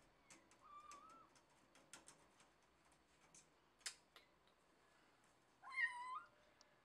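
A cat meows loudly once near the end, after a faint short mew about a second in. Light scattered clicks run throughout, the cat's claws catching on the window's mesh screen as it climbs.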